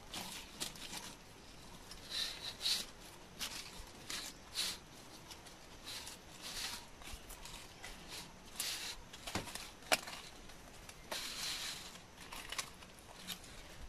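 Stiff Arenga palm leaf strips rustling and scraping against each other as they are woven over and under into a mat, in irregular scratchy bursts, with a couple of sharp clicks a little past the middle.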